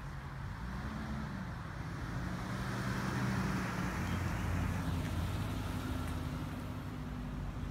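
A car driving slowly past on the street, engine running and tyres on the road, the sound swelling to a peak in the middle and easing off.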